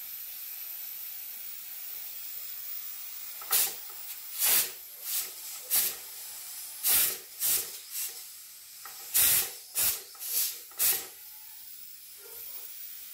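Stovetop aluminium pressure cooker hissing steadily as it cooks under pressure, with about a dozen louder, irregular spurts of steam from its valve between about three and a half and eleven seconds in.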